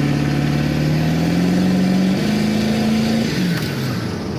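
Ford 7.3 Powerstroke turbo-diesel V8 in an F-350 dually accelerating on a 60-horsepower Hydra tune. The engine note rises steadily for about two seconds, climbs a step higher, then eases off a little after three seconds in.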